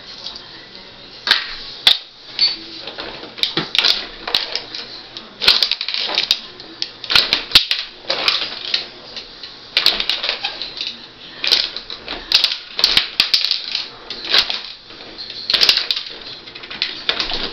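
Rod hockey game in play: the puck clicking and clacking off the players, goalies and boards, with the control rods rattling as they are pushed and spun. An irregular clatter of sharp clicks, some coming in quick clusters.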